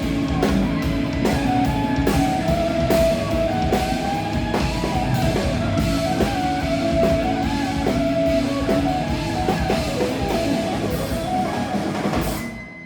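Rock band with drum kit and guitar playing a song, ending abruptly near the end on a final hit that leaves tones ringing and fading.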